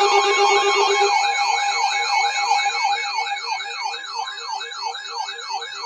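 Layered electronic sirens yelping rapidly, about three up-and-down sweeps a second, over steady electronic tones, fading out near the end.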